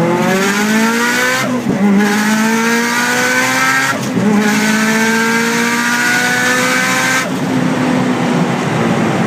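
Subaru Impreza WRX STI's turbocharged flat-four and exhaust, heard from inside the cabin under hard acceleration, the note climbing in pitch with the revs. Two upshifts, about one and a half and four seconds in, each drop the pitch before it climbs again; about seven seconds in the throttle eases and the note settles to a steady drone.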